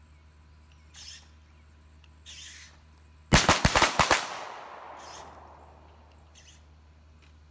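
Several handguns fired by a line of shooters in a ragged volley of about seven shots inside one second, each shooter double-tapping a target, with the echo trailing away over about two seconds.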